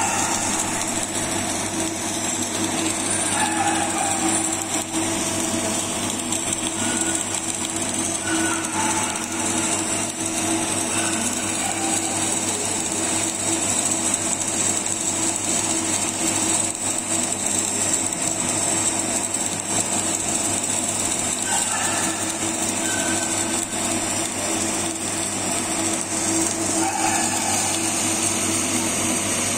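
Flux-cored MIG arc welding 304 stainless steel with 308L wire, the arc crackling and sizzling steadily and without a break, over a steady hum.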